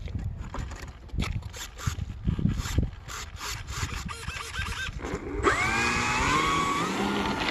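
Scattered handling knocks and wind rumble, then about five seconds in an RC foam plane's electric motor and propeller spin up, a whine that rises in pitch in steps as the throttle is opened.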